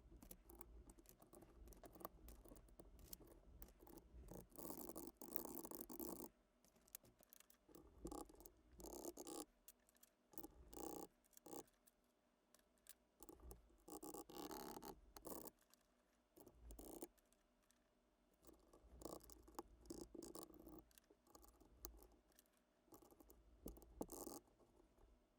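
Typing on a custom Alice-layout mechanical keyboard with Boba U4T tactile switches and ABS keycaps: quick, irregular runs of keystrokes broken by short pauses.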